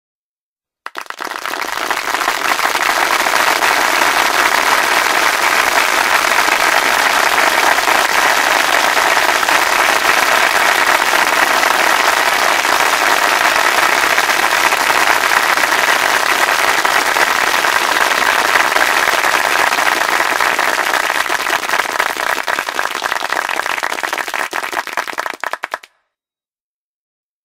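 Crowd applauding: dense clapping that begins about a second in, thins a little near the end, then cuts off abruptly.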